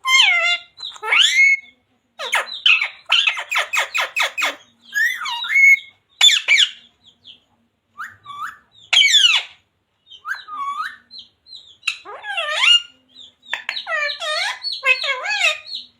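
A parrot calling and squawking in a string of short calls, many falling in pitch, with a quick run of about eight calls a second a couple of seconds in.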